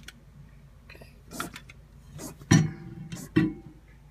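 Trigger spray bottle of Zep Microwave Miracle cleaner squirting several short sprays in quick succession onto a microwave.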